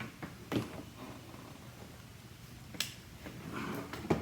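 Scattered sharp clicks and light knocks from unplugging and handling an orbital sander, with a short rustle about three and a half seconds in.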